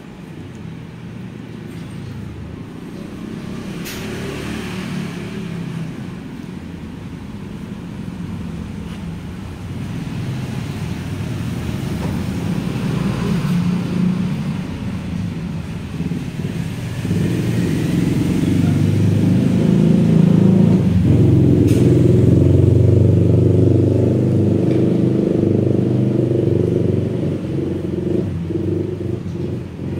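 A motor vehicle engine running with a steady low hum. It grows gradually louder and is loudest a little past the middle before easing off slightly. A couple of sharp clicks stand out, one early and one about two-thirds of the way through.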